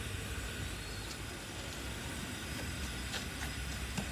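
Steady low rumble and hiss. A few faint, light clicks of wooden chopsticks against a plastic plate as small crayfish are rolled in potato starch, about three seconds in and again near the end.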